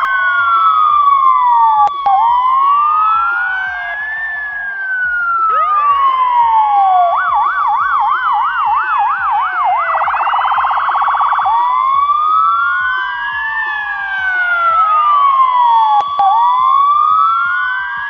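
Ambulance's electronic siren cycling through its modes: a slow rising-and-falling wail, switching about seven seconds in to a fast yelp, then a very rapid warble, then back to the slow wail. Brief cuts interrupt the siren twice.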